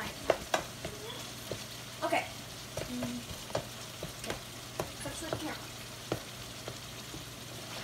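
Ground meat sizzling in an electric skillet as it is stirred with a spatula, the spatula clicking and scraping against the pan at irregular moments over a steady hiss.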